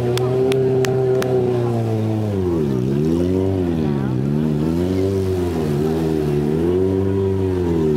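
Stunt sport motorcycle engine at high revs, held steady for about two seconds, then rising and falling in pitch about once a second as the throttle works on and off during the stunt. A few sharp clicks in the first second.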